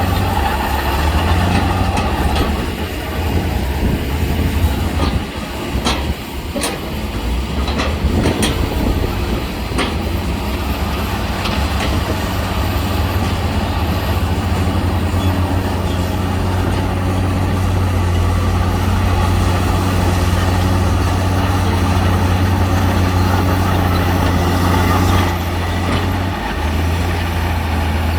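Heavy diesel earthmoving machinery running steadily at work, with a deep continuous engine drone and several sharp metallic knocks in the first third.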